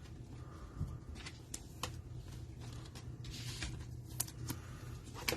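Trading cards being handled and slid against one another: faint light clicks, with a brief rustle about three and a half seconds in.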